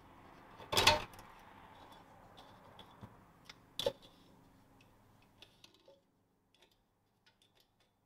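Small metallic clicks and ticks as a drum brake shoe's top return spring is stretched into place with a welding-wire puller, with a knock about a second in and a sharper click near four seconds.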